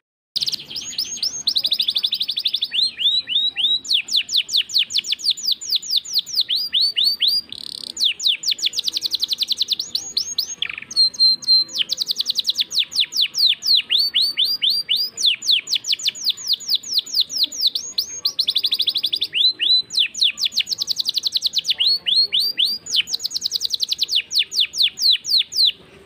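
Domestic canary singing a long, continuous song made of fast rolling trills: runs of quick, evenly repeated falling notes, changing from phrase to phrase with only brief breaks. A short held whistle comes about halfway through.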